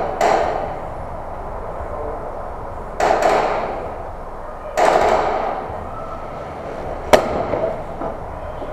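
Airsoft guns firing in a bare concrete building: sudden reports at the start and about three and five seconds in, each ringing on for about a second, then one sharp crack near the end.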